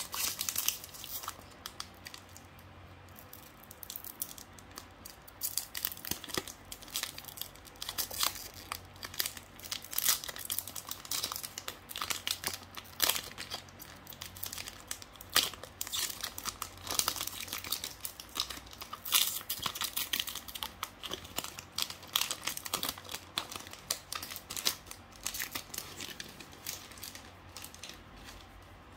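Foil Pokémon card booster pack wrapper crinkling and tearing as it is handled and torn open by hand: irregular sharp crackles, with a short lull about two seconds in.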